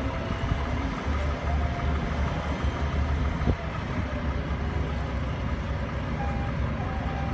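Heavy engine idling steadily with a low rumble.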